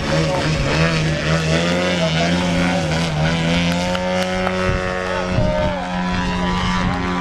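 Giant-scale RC aerobatic plane's petrol engine and propeller running at high power. The pitch rises and falls for the first few seconds as the plane hovers and climbs, then holds steady.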